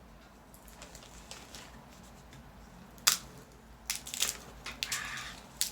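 Peanut shells being cracked and picked apart by hand: a few sharp cracks, the loudest about three seconds in, with a short crinkle of dry shell and papery skin near the end.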